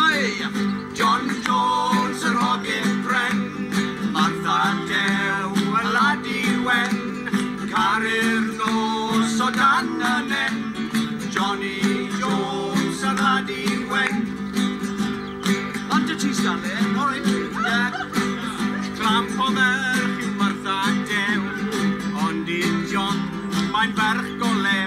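Live folk music: acoustic guitars strumming a lively song, with singing over it.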